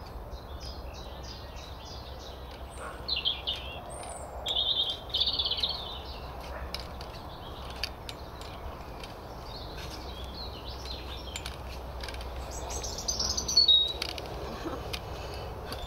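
Songbirds singing in a few short, bright phrases, the loudest near the end, over a low, steady background noise.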